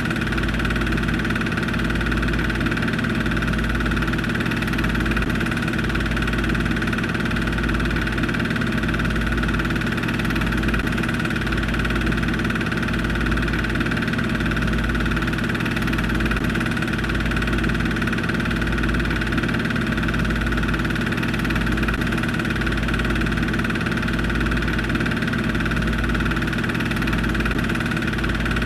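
Film projector running: a steady mechanical hum with a slow, even throb low down and hiss above, unchanging.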